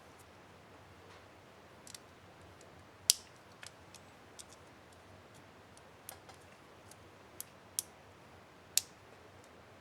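Small, sharp plastic clicks and snaps at irregular intervals from a laptop keycap and its plastic retainer clips being handled and pressed onto an HP DV4-1000 keyboard, the loudest snap about three seconds in.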